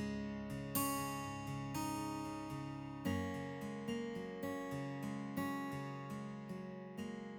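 Gentle acoustic guitar music, single plucked notes and chords ringing out one after another at an unhurried pace.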